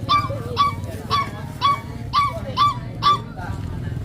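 A bird, goose-like, honking in a rapid series of about eight short calls, roughly two a second, over a steady low rumble.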